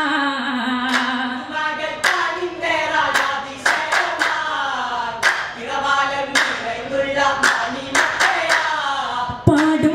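Vattappattu group singing a Malayalam Mappila song together, punctuated by sharp rhythmic hand claps about once a second.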